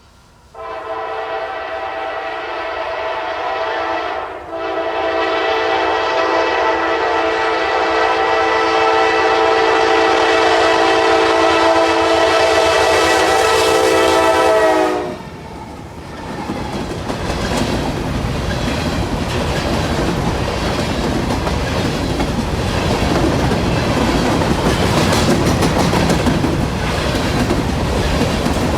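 Norfolk Southern locomotive air horn sounding a multi-note chord: a short blast, then a long one of about ten seconds that cuts off. After that the train's wheels rumble and clatter over the rails as it passes.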